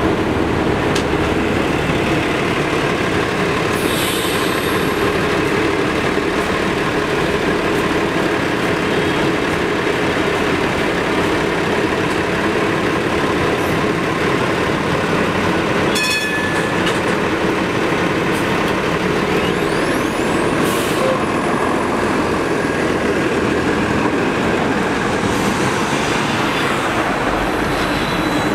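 A 1946 St. Louis Car Company PCC streetcar running steadily at street level, with city traffic around it. There is a single bell-like ding about halfway through, and short hisses about four seconds in and again around twenty seconds.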